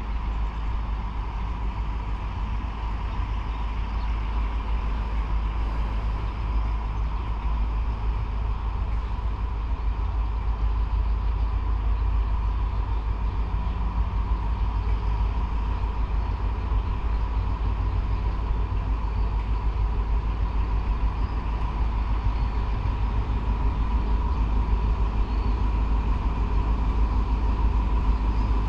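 Diesel train engine running with a steady low rumble and a thin steady whine, slowly growing louder.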